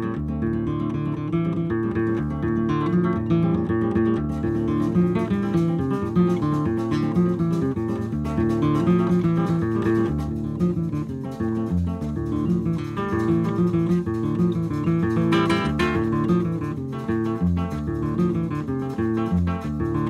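Recorded acoustic guitar music: a nylon-string Brazilian violão plays a driving, rhythmic figure, with repeated bass notes under plucked chords, that carries candomblé drum patterns over to the guitar.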